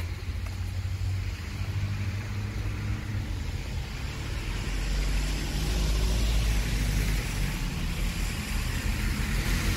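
A car driving past on a wet street: engine rumble and the hiss of its tyres on the wet road, growing louder about halfway through.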